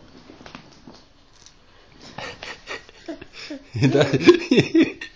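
A baby chewing a wafer biscuit: faint clicks, then a run of short crunches about two seconds in. Near the end comes a loud, uneven burst of vocal sound.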